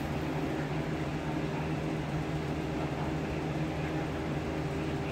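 Electric fan running: a steady hum with an even airy hiss.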